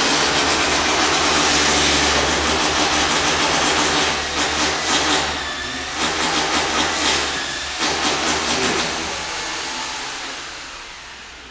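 Loud machinery used for pouring floor screed, running with a steady low hum and a dense hiss. Irregular pulsing surges come in about four seconds in and die down, and the noise fades toward the end.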